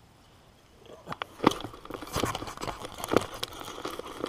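Irregular close-up rustling, scraping and sharp knocks from clothing and hands brushing against the camera while a hooked bass is landed. It starts about a second in and is loudest at about a second and a half and again near three seconds.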